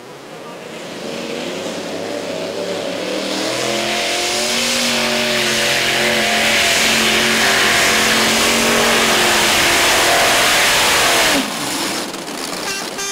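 Multi-engine modified pulling tractor with supercharged engines at full power, dragging a weight sled, growing louder over the first several seconds. About eleven seconds in, the engines wind down with a falling pitch and the sound drops sharply.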